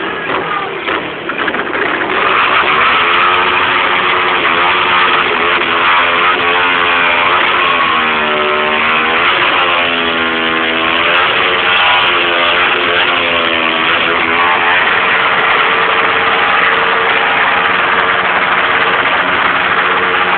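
Sport motorcycle engine held at high revs during a burnout, the rear tyre spinning in smoke; the engine note dips and climbs again several times in the middle, over a steady loud hiss.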